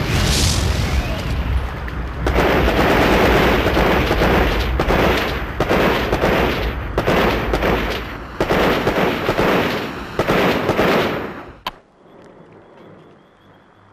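Staged battle sound of heavy machine-gun fire in long, dense bursts that pause and resume. It cuts off suddenly about twelve seconds in.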